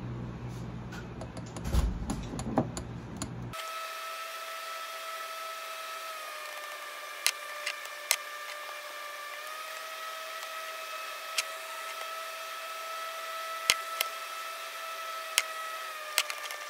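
A steady machine whine in two even pitches that dips slightly twice and comes back up once, with scattered sharp clicks over it; it cuts in suddenly about three and a half seconds in, after a stretch of room noise and handling clicks.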